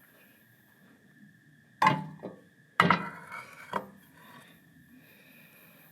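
Objects being handled and set down: three hard clunks about a second apart, each with a brief rattle.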